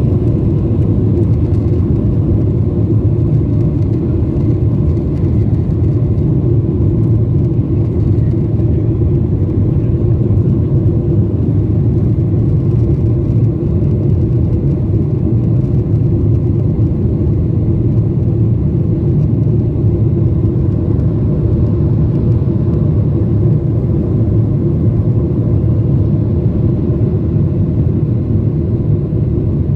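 Cabin noise from a Boeing 737-900's CFM56-7B turbofan engines at takeoff thrust: a loud, steady, deep rumble as the airliner lifts off and climbs.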